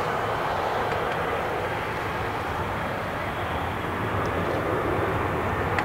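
Boeing 747-400's four jet engines at takeoff thrust as the airliner rolls down the runway: a steady, dense rush of jet noise.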